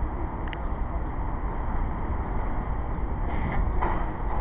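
A car moving slowly at low speed, a steady low rumble, with a faint click about half a second in and another near the end.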